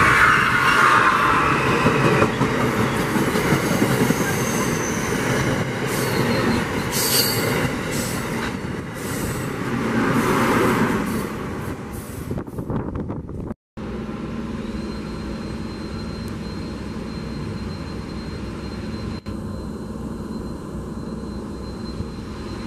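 Amtrak Keystone Service train running through at speed: a loud rush of steel wheels on rail with clatter, dying away after about twelve seconds as the train passes. After an abrupt break, a quieter steady hum with a thin high whine as an Amtrak ACS-64 electric locomotive approaches.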